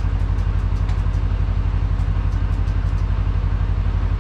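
A Gator utility vehicle's engine idling with an even low chug while it serves as the jump source for a garden tractor.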